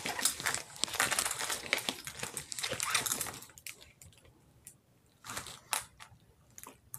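Clear plastic film on a diamond-painting canvas crinkling as the canvas is turned and pressed flat by hand, for about three and a half seconds, then a couple of brief soft rustles.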